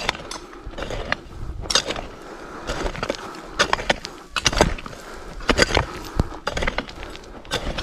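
Hand digging tools chopping into soil to open an irrigation channel around a young tree's roots: irregular sharp strikes about once or twice a second, with scraping between them.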